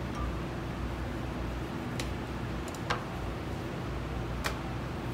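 Steady low machine hum of room ventilation, with three light, sharp clicks from handling knife and meat at the work table, about two, three and four and a half seconds in.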